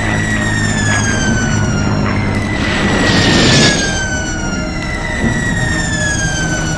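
Wartime sound effects of falling bombs: long whistles, each falling slowly in pitch, three in turn, over a low steady drone of aircraft engines. A burst of rushing noise comes about three seconds in.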